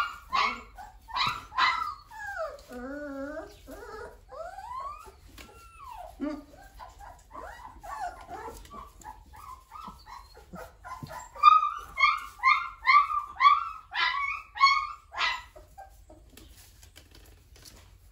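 Three-week-old livestock guardian puppies crying: a quick run of short, high yelps at the start, then wavering whines, then fainter cries, and another quick run of yelps, about three a second, from about eleven seconds in to fifteen.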